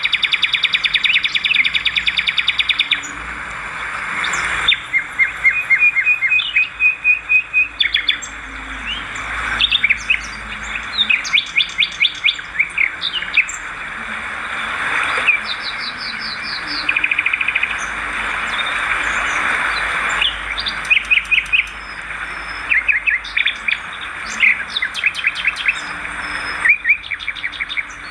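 Swiftlets twittering: rapid trains of high, buzzy chirps repeated over and over, the pattern changing abruptly every few seconds.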